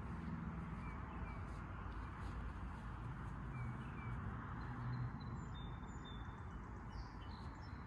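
Steady outdoor rumble, as of wind or distant traffic, with a few faint short bird chirps scattered through it.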